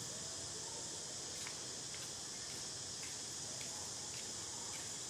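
Steady high-pitched drone of an insect chorus, with faint ticks about twice a second starting a little over a second in.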